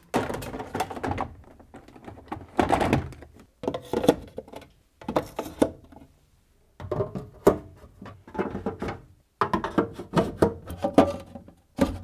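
Clear plastic fridge door bins being pushed and slotted into the inner door liner of a Samsung American-style fridge freezer. The plastic knocks and clunks in several runs, with short pauses between.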